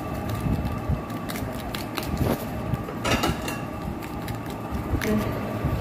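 Soft rustling and small clicks of shredded cabbage and cucumber salad being handled and arranged on a plate, with a crisper burst about three seconds in, over a steady background hum.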